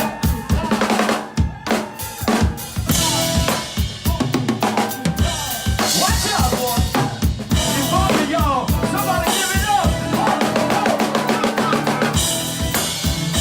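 Live rock band playing, with the drum kit loudest: regular bass drum and snare hits under sustained low notes. A lead line with bending notes comes in over the middle.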